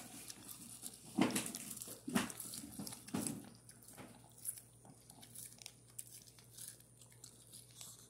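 A Chihuahua biting and chewing kernels off a corn cob: irregular wet crunches, the strongest about one, two and three seconds in, then smaller nibbling crackles.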